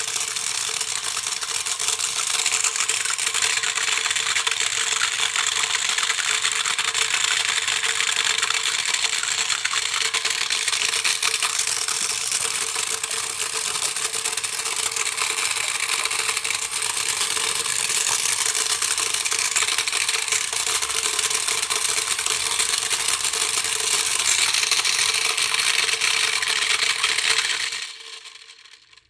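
Small electric toy motor running fast on high voltage, with a steady whine and continuous rattling; it cuts off near the end.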